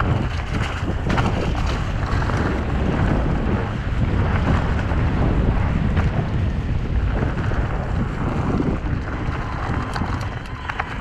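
Wind buffeting the microphone over the steady rumble of mountain-bike tyres rolling down a dirt singletrack, with a few sharp clatters from the bike over rough ground.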